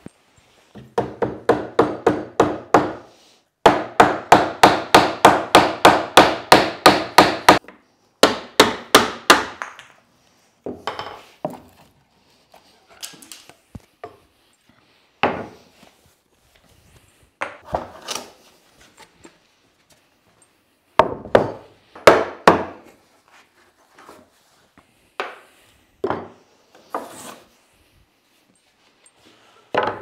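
Three fast runs of hammer blows on plywood, about four to six a second, as the birch-ply leg vise's pinned and tenoned parts are knocked apart. These are followed by scattered single wooden knocks and clatters as the loose plywood pieces are handled and set down.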